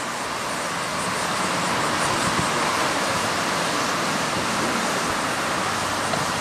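F-15 Eagle jet engines idling, a steady rushing hiss with no distinct pitch.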